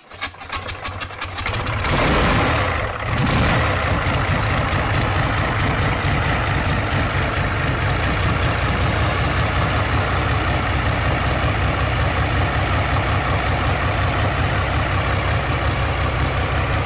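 V12 tank engine cold-starting: uneven firing strokes for about two seconds as it catches, a brief stumble near three seconds, then a loud, steady, rough idle through its short open exhaust stubs.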